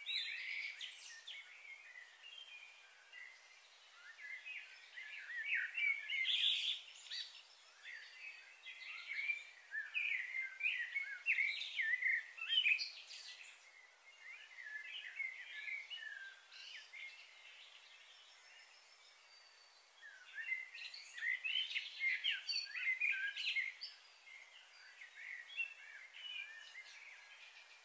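Small birds chirping and twittering in busy flurries, with quieter lulls between them.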